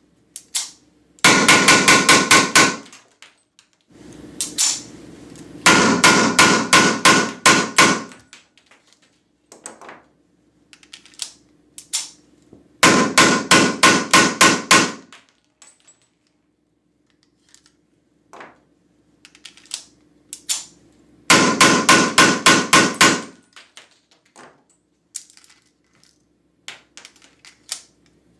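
Weihrauch HW94 blank pistol firing 9 mm P.A.K. blanks (SK Schönebeck) in four rapid strings, about six shots a second, its muzzle pressed into a foil-covered box. Faint clicks and a low hum come between the strings.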